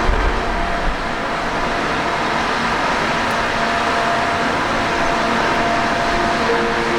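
Misting fan running steadily: a constant rush of air with a faint steady hum, and a short low rumble in the first second.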